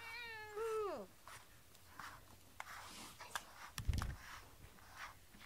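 A domestic cat meows once, a long call that holds its pitch and then falls away at the end. Soft rustling of a brush through fur follows, with a dull thump about four seconds in.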